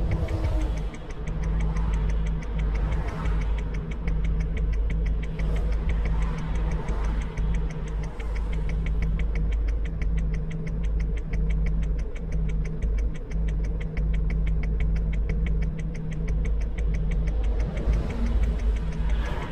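Engine idling, heard from inside a vehicle cabin: a steady low rumble with a fast, even ticking running through it.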